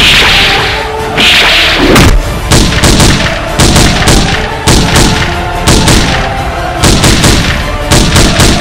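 Action-film sound effects of gunshots and heavy booms, sharp hits coming about once or twice a second, over background music.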